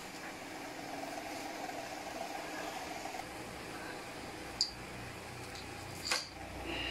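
Chef's knife cutting through a peeled white radish onto a plastic cutting board: two sharp knocks, the first past the middle and the louder one near the end, over a steady background hum.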